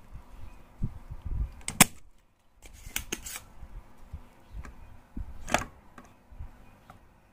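Spring-loaded desoldering pump firing with sharp snaps as its plunger releases, sucking solder from the joints of a TV board's PTC thermistor. There are a few snaps, the loudest about two seconds in, with low knocks of handling between them.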